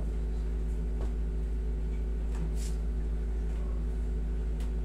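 Steady low hum of a running air conditioner, with a few faint, brief rustles of hands pressing on a shirt during a back massage.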